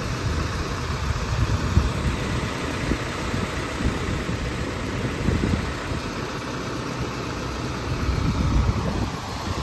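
Truck engine running steadily to drive the truck-mounted hydraulic crane, with the rumble swelling briefly twice, about a second and a half in and again near the end.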